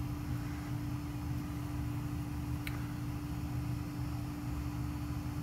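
Steady low hum of a running machine, with one constant tone over a low rumble; a faint tick about two and a half seconds in.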